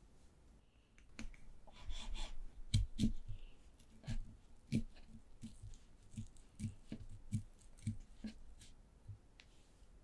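Kitchen knife cutting through a sausage and knocking against a wooden cutting board: a string of irregular soft knocks and clicks, with a short scrape about two seconds in.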